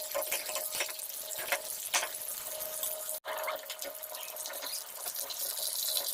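Water running steadily, as from a kitchen tap, with a few light clicks and knocks over it.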